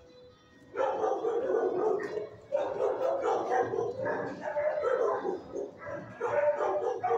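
Shelter dogs barking in the kennels, starting about a second in and going on almost without a break, with two short pauses.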